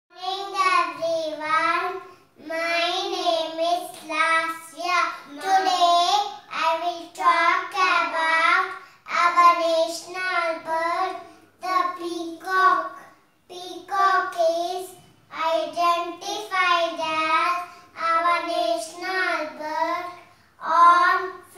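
Young child's voice singing in short phrases, with brief pauses between them.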